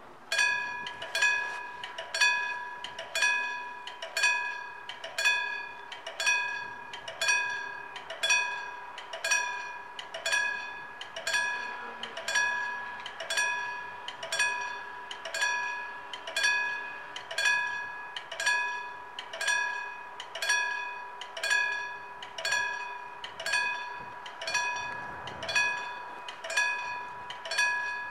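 Old Siemens level-crossing warning bell striking about once a second, each stroke ringing out and dying away before the next. It starts suddenly: the crossing has switched on for an approaching train and its half barriers are lowering.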